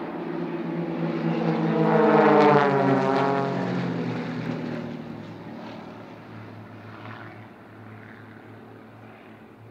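Propeller engines of four large radio-controlled Extra aerobatic model planes flying a formation pass overhead. The sound swells to its loudest about two and a half seconds in, drops in pitch as the planes go by, and fades away.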